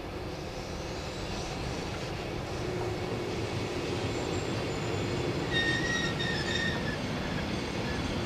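A heavy-load Schnabel freight wagon carrying an oversized load rolls past on the rails with steady wheel-and-rail noise, and a brief high wheel squeal comes in about two-thirds of the way through.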